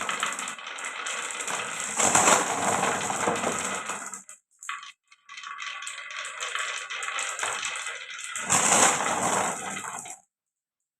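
Many marbles rolling and clattering down a toy marble run, loudest about two seconds in and again near nine seconds, with a short break near the middle. The clatter cuts off abruptly about ten seconds in.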